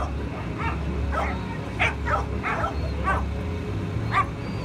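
A dog barking and yipping over and over, short high barks that drop in pitch, coming about every half second to a second.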